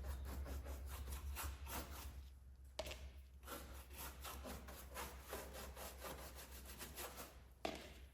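A cheap bristle brush scrubbing polyester resin onto ground-down fiberglass in quick repeated strokes, a dry scratchy rubbing, with a knock near the end.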